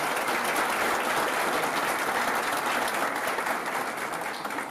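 Audience applauding: many hands clapping in a dense, steady patter that begins to die down near the end.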